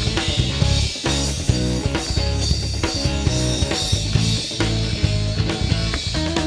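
Live rock band playing an instrumental passage between sung verses: drum kit keeping a steady beat under electric guitar and bass.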